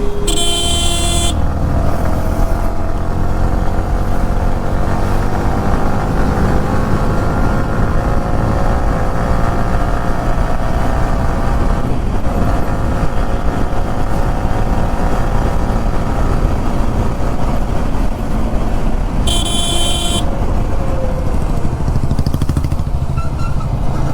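Motorcycle riding on the road, its engine running with the pitch drifting up and down over a heavy wind rumble. A vehicle horn sounds briefly at the start and again near the end.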